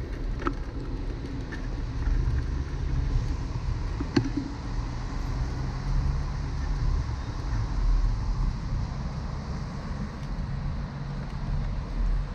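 Steady low rumble of wind and road noise from riding a bicycle along a bike lane, with car traffic on the road alongside. A sharp click comes about four seconds in.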